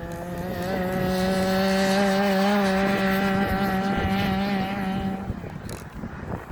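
Small two-stroke petrol engine of a 1/5-scale RC car running at a steady high pitch under throttle, wavering slightly, then dropping away suddenly about five seconds in. The engine is being broken in.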